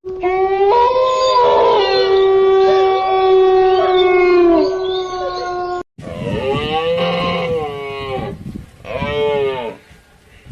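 A long, steady howl from an animal, held for about four seconds before it drops away. Then, after an abrupt cut, a different animal gives two shorter calls that rise and fall in pitch.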